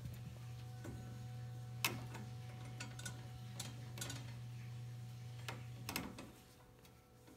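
A few sharp, scattered metallic clicks and taps as a Maine Coon cat knocks and rubs against the bars of a metal baby gate, over a steady low hum that fades out about six seconds in.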